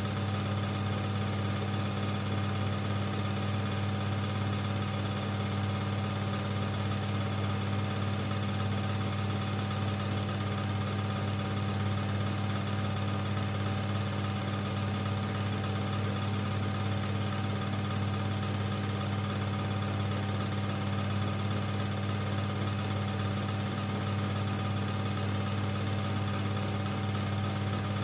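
Super 8 film projector running with a steady, low hum.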